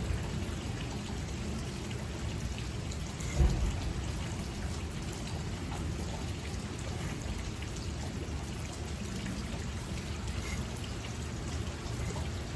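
Steel broadhead blade being stroked along a sharpening stone: a steady scraping patter of many small strokes. There is one dull thump about three and a half seconds in.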